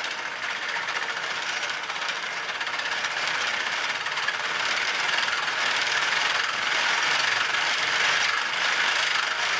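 A DC motor spinning a 3D-printed plastic pericyclic nutating bevel-gear gearbox at high speed (around 1000 RPM): a dense, steady whir and rattle of plastic gear teeth meshing. It grows louder over the first few seconds as the motor's supply voltage is turned up, then holds.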